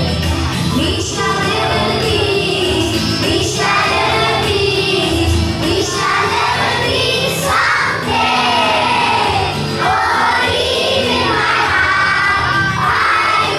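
A song with singing, children's voices among them, over a steady backing beat.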